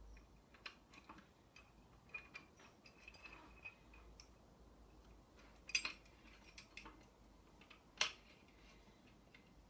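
Faint small metal clicks and clinks of a steel load pin and cotter pins being fitted into a crane scale's hook, with a cluster of sharper clinks a little past halfway and one more near the end.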